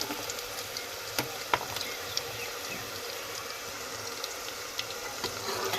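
Soaked soybean mince frying in hot oil in a pan: a steady sizzle with scattered crackles and pops.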